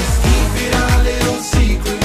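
Dance-pop music with a steady kick-drum beat.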